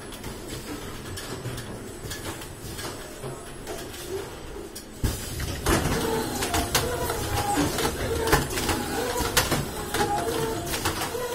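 Automatic screen printing machine running, its print head pulling the squeegee across the screen amid the clatter of the mechanism, with repeated sharp clicks and knocks. The sound gets louder about five seconds in.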